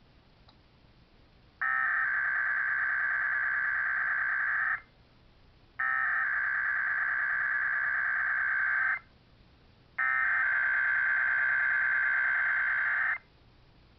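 Emergency Alert System SAME header sent by a DASDEC encoder/decoder: three identical bursts of buzzy digital data tones, each about three seconds long, separated by one-second gaps. They open a Required Weekly Test alert.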